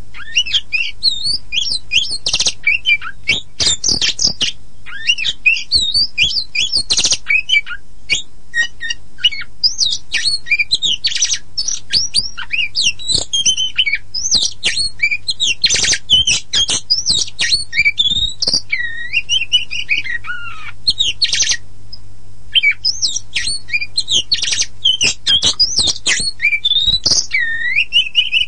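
Oriental magpie-robin (black-and-white kacer poci) singing nonstop: a quick, varied run of whistled glides, harsh squawky notes and sharp clicky chatter. A steady low hum runs underneath.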